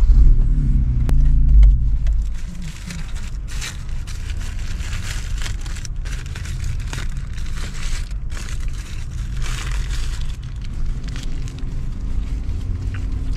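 Paper food wrapper crinkling in the hand, over the low rumble of a Honda Civic's engine running; the rumble is heaviest in the first two seconds and the crinkling comes in spells from about three seconds in.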